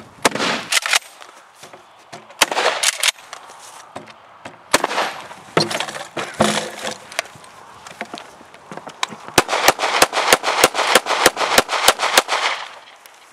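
Mossberg 500 12-gauge pump shotgun with a breacher barrel firing birdshot into a wooden door's deadbolt and hinges: several loud blasts in clusters over the first seven seconds. Then, from about nine seconds in, a rapid string of about a dozen 9 mm pistol shots from a Ruger SR9c, four or five a second.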